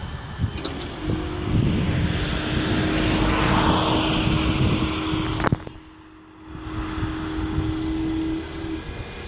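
Level-crossing barrier drive humming steadily as the booms lift to reopen the crossing, over road traffic noise. There is a sharp click about five and a half seconds in.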